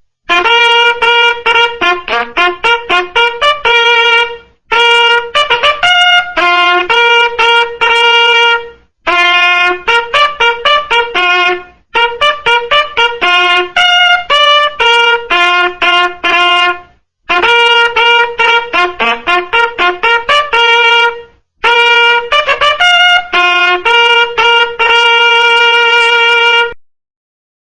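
Military bugle playing a fast call of quick repeated notes on a few pitches, in six phrases with short breaths between them, the kind of call sounded to wake the troops.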